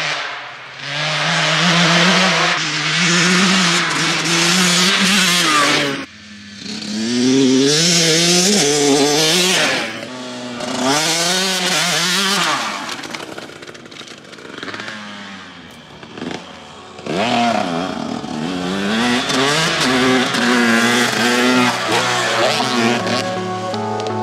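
KTM 150 SX two-stroke motocross bike ridden hard, its engine revving up and down in repeated surges as the throttle is opened and closed. It sharply drops off about six seconds in and runs quieter at lower revs for a few seconds past the middle.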